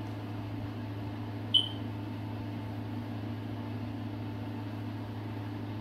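Green beans and onions stir-frying in oil in a wok on high flame over a steady low hum, with one short, high metallic clink about a second and a half in.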